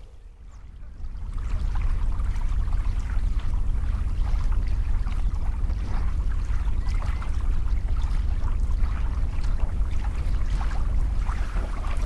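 Outdoor lagoon ambience: a steady, heavy low rumble with many short, scattered high ticks over it, swelling in about a second in.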